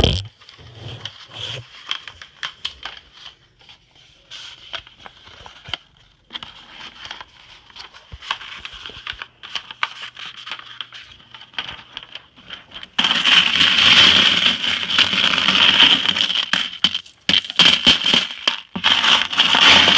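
Loose coins clinking as they are handled and dropped: scattered separate clinks at first, then about two-thirds of the way in a loud, dense, continuous jingling of many coins moving together.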